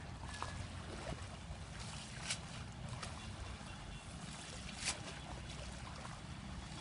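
Water sounds around a small fishing boat: a steady low rumble with trickling water and a few short, sharp splashes or knocks, the loudest about two seconds and about five seconds in.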